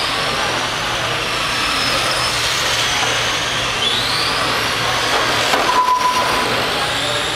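Several electric RC race cars running on an indoor carpet track: high motor whines rising and falling as they accelerate and brake, over a steady hiss, with a short beep about six seconds in.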